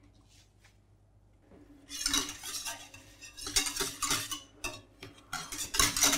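Wire whisk stirring milk, cream and milk powder in a stainless-steel saucepan: quick metal scraping and clinking strokes against the pan, starting about two seconds in.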